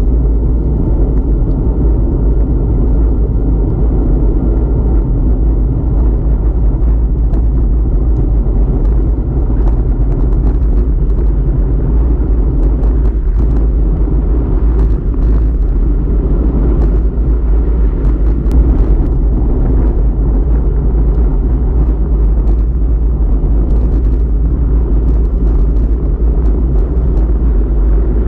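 Wind and road noise on a bike-mounted camera as a road bicycle descends at speed: a loud, steady, low rumble with small scattered ticks.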